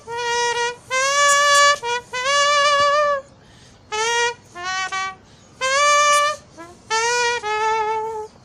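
A person imitating a trumpet with the bare mouth, no instrument, playing short melodic phrases of held notes with brief pauses between them.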